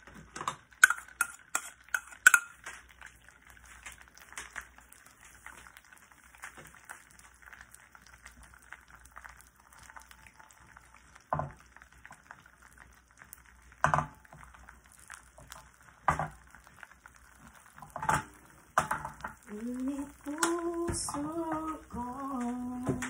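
A bowl and utensil clicking sharply against a nonstick frying pan in the first couple of seconds, then a few single knocks, over the faint sizzle of a thin egg omelette cooking. Near the end a person hums a tune.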